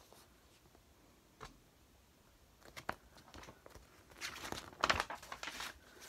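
Paper crinkling and rustling as a picture book's pages are handled and turned, a few short crackly rustles in the second half.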